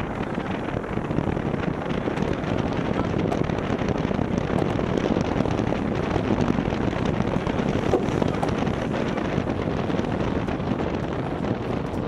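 Wind buffeting the microphone over the rush of water along the hull of a Maxi 72 racing yacht sailing fast, a steady noise throughout.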